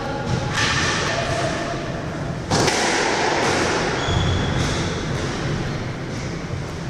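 Thuds and a few short squeaks echoing around a squash court while no rally is being played, with a sharper knock about two and a half seconds in.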